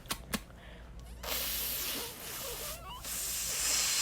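A person making two long hissing noises, each about a second long, with a brief squeaky glide between them.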